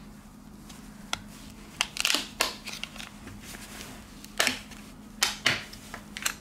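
Plastic back cover of a V Smart Joy 1 phone being pried off with a thin metal iSesamo opening tool: a series of irregular sharp clicks and snaps as the tool scrapes along the seam and the cover's clips let go.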